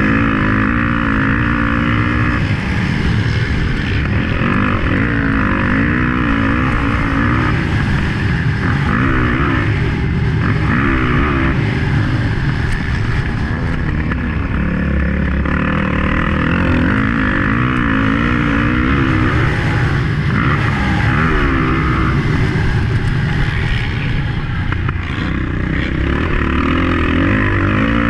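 Motocross bike engine under race load, revving up and down over and over as the rider accelerates, shifts and backs off around the track.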